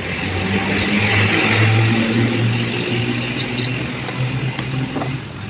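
A motor engine running, getting louder between one and two seconds in and then easing off, with a few light clicks in the second half.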